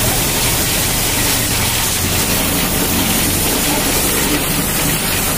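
High-pressure washer jet spraying water onto a motorcycle: a loud, steady hiss over a low, steady hum.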